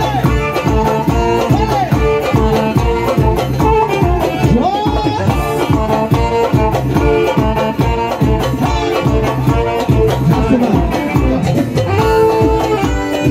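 Live Tajik dance music from a band amplified through PA speakers: a steady, fast beat under a melody of gliding, ornamented notes.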